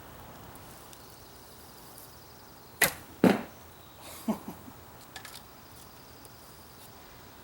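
A PVC Turkish bow shot once: a sharp snap of the string on release, then the thud of the arrow striking the target about half a second later, with a smaller knock about a second after that.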